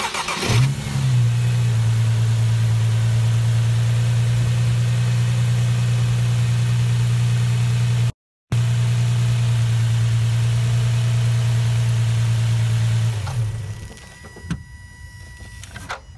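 A motor hums steadily at a low pitch, spinning up about half a second in and winding down about 13 seconds in, with a brief dropout near the middle.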